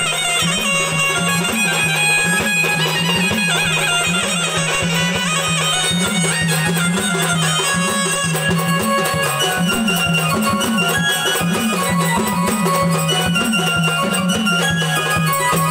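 Instrumental jagaran-gondhal folk music: a steady drone under a busy, ornamented melody, with a regular pulse about once a second.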